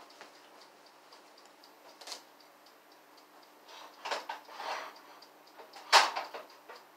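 A steady light ticking runs underneath. Around four seconds in there is the rustle and knock of cookware being handled with cloth pot holders at the stove, and at about six seconds a single loud metallic clank.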